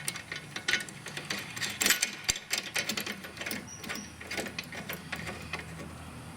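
Quick, irregular metal clicks from a hand tool tightening a nut onto the bolt of a ride-on mower's deck height chain. The clicks come thick and fast for the first few seconds, then thin out.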